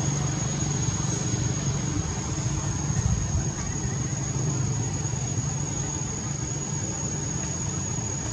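A steady low hum like an idling engine, under a constant thin high-pitched whine.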